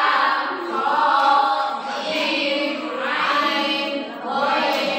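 A group of women chanting Arabic letters in unison in a drawn-out, sing-song recitation drill, led in by a count of three.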